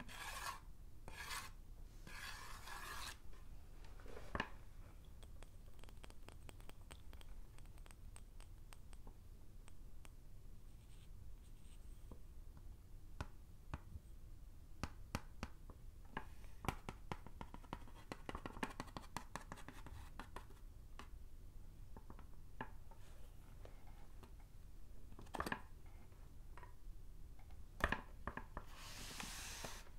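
White chalk scraping across a small green chalkboard in a few quick strokes, then a long run of small clicks and light scratches as the chalk is handled close up. Near the end a soft rubbing swish as a tissue wipes the chalkboard.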